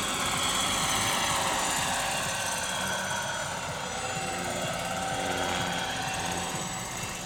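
Large scale model Lama helicopter flying past low, with a fast chop from the main rotor under a high whine from the drive. The sound eases off a little near the end as the model climbs away.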